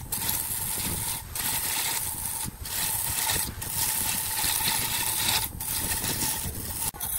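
Wood lathe running with a steady whine while a gouge cuts the spinning segmented wooden cylinder, the cut a continuous hissing shear as shavings peel off. The hiss is broken by several short gaps, about one every second or so.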